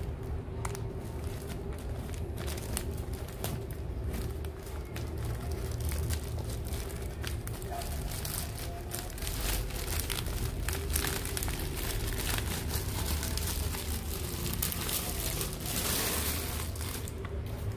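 Plastic wrapping crinkling and a fabric carry bag rustling as a tripod is handled and pulled out of the bag, with many small irregular crackles throughout.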